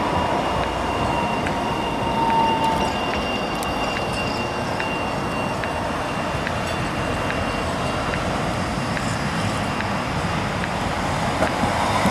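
Modern low-floor electric trams running past on street track: a steady rolling rumble, with a high steady whine that fades out about three seconds in.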